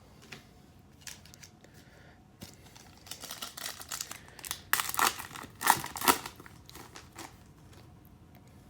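Crinkling and rustling of trading cards and a plastic card sleeve being handled, in a run of short, irregular crinkles that are loudest near the middle.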